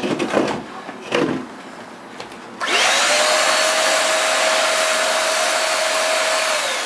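A couple of knocks, then a Shark Multi-Task stick vacuum is switched on about two and a half seconds in. Its motor whine rises quickly to a steady pitch over a loud rush of air and runs for about four seconds on a test after its clogged filter was cleaned. Near the end it is switched off and the whine falls as it winds down.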